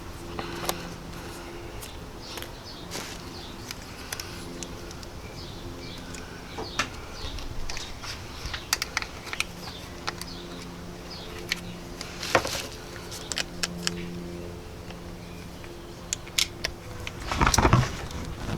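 Small clicks, taps and rustles of hand work as thermal grease from a small packet is spread onto a replacement ignition control module, over a faint on-and-off hum. A louder rustle comes near the end.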